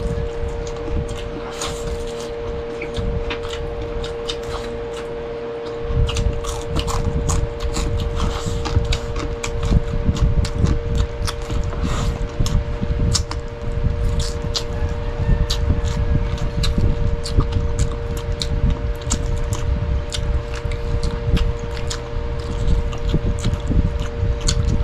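Close-miked eating sounds: chewing with frequent small clicks and smacks, over a steady electrical hum. Low thumps and rumble grow heavier about six seconds in.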